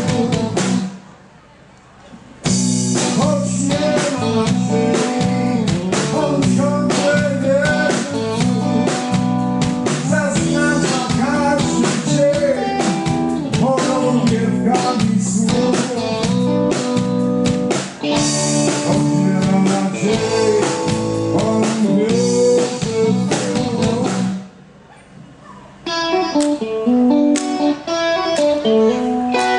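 Live electric blues band playing an instrumental passage: electric guitars, bass and drum kit. The band stops short twice, about a second in and again near the end, and after the second stop an electric guitar plays on alone.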